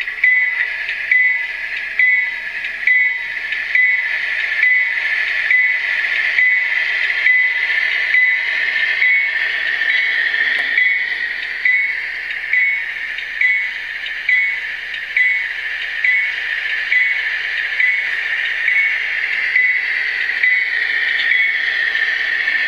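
Digitrax DCC sound decoder of an HO scale GE Evolution-series (GEVO) model diesel locomotive, playing its engine sound with the locomotive bell ringing steadily about once a second through the model's small speaker.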